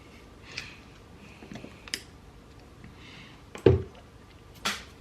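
Scattered clicks and light knocks of small engine parts being handled on a workbench, with one heavier knock about three and a half seconds in and another sharp click shortly after.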